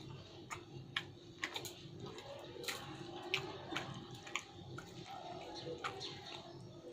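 A person chewing a mouthful of pulao, with scattered wet mouth clicks and smacks, about one or two a second.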